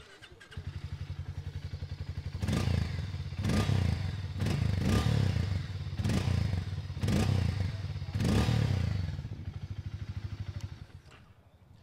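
A Hero Mavrick 440's 440cc single-cylinder engine catches about half a second in and idles with an even thumping beat. It is then revved in six short throttle blips through the exhaust before dropping back to idle and cutting off near the end.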